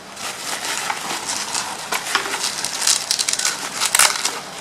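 Plastic packaging around a modem crinkling and crackling in irregular bursts as it is handled and unwrapped.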